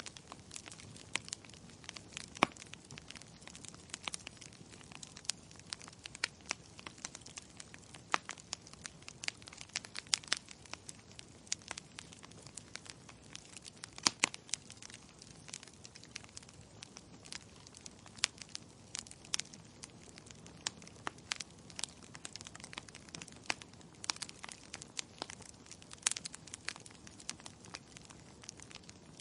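Logs burning in a fireplace, crackling with frequent, irregular sharp pops over a soft steady hiss; a few pops are much louder than the rest, about two seconds in, halfway through and near the end.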